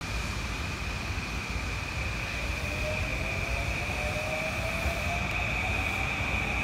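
JR Yamanote Line E235-series electric train on the overhead bridge, a steady low rumble with a motor whine rising in pitch from about halfway in as the train accelerates. A steady high-pitched tone runs underneath.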